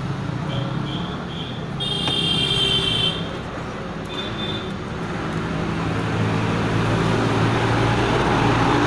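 Road traffic running by with a steady low engine rumble that grows louder near the end. A shrill high tone sounds for about a second, starting about two seconds in, with a few short high beeps around it.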